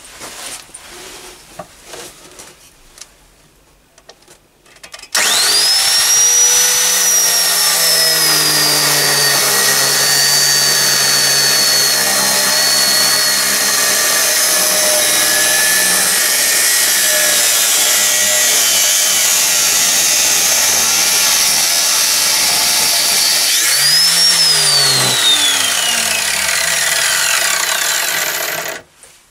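Electric angle grinder in a cut-off stand, with a thin 1 mm stainless-steel cutting disc, starts up about five seconds in and cuts a slot into a mild steel test piece. It makes a loud, steady grinding noise over a high whine that climbs quickly at start-up, then sags slowly under the load of the cut. Near the end the whine rises briefly and then falls away, and the noise stops abruptly.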